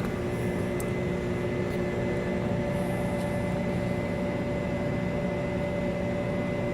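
Steady hum of machine-shop machinery, a constant drone with several steady whining tones.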